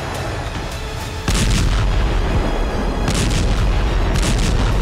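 Explosions over background music: a sudden blast about a second in opens a heavy low rumble, and two more blasts follow near the end.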